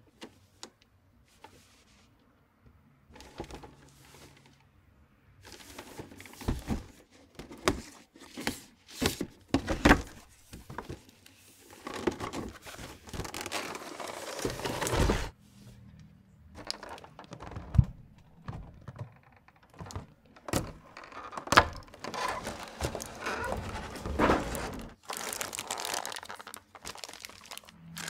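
Unpacking a boxed figure: faint handling at first, then scattered knocks and taps from the cardboard box, followed by long stretches of crinkling from the clear plastic blister tray and the plastic bag around the figure.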